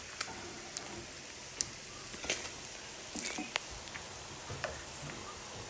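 Chicken frying in hot oil: a steady sizzle with scattered, irregular pops and crackles.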